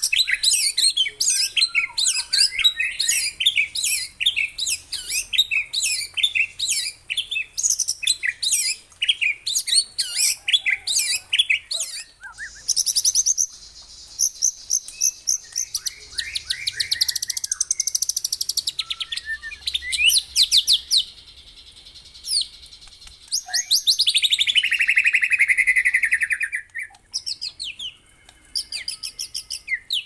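White-rumped shama (murai batu) singing loud, varied song: a fast run of short, sharp high chirps, then long rapid trills, one sliding down in pitch about two-thirds of the way through, and scattered notes near the end.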